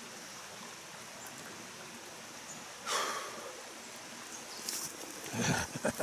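Mountain stream water running steadily, with a brief rustle about three seconds in and a few short handling knocks and rustles near the end.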